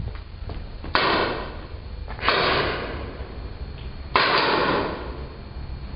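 Three paintball marker shots, each a sharp pop followed by a long echo off bare concrete walls: about a second in, just past two seconds, and just past four seconds.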